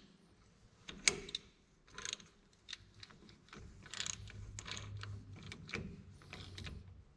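Socket ratchet wrench turning a spark plug in a tractor's cylinder head: scattered ratchet clicks and metal clinks, then a busier run of clicking from about three and a half seconds in.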